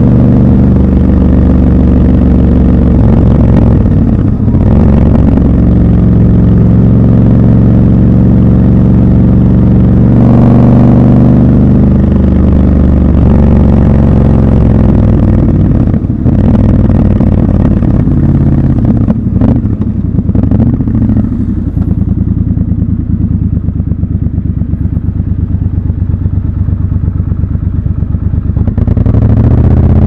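Triumph Scrambler 1200 XC's 1200 cc parallel-twin engine running under way, raw sound from the rider's seat: steady pulling with a gear change about four seconds in and a pickup in revs around ten seconds. From a little past twenty seconds it falls to a slow, low lope as the bike crawls in queued traffic, then the revs rise again near the end.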